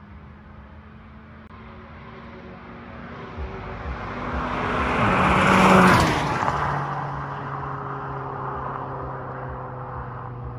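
Volkswagen Polo GTI (6C) with a custom exhaust driving past: its engine note swells over a few seconds, peaks just past halfway as the car passes close by, then drops in pitch and fades as it drives away.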